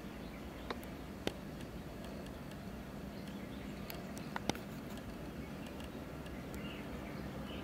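Outdoor background noise: a steady low hum with faint distant bird chirps. Four sharp clicks sound within it, two about a second in and a close pair about halfway through.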